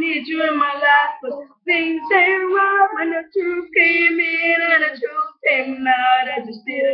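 Young boys' voices singing a pop song unaccompanied, in phrases with held, wavering notes and brief silent breaks between them.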